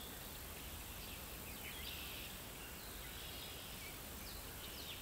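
Faint outdoor ambience: birds chirping a few times in quick high notes over a steady low hiss.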